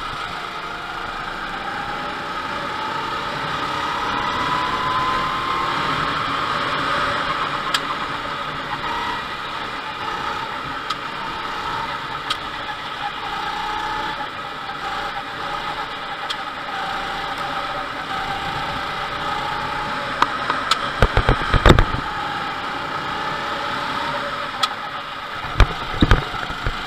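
Rental go-kart engine heard from on board while driving laps, its note rising and falling with the throttle through the corners. Two short clusters of loud thumps come near the end.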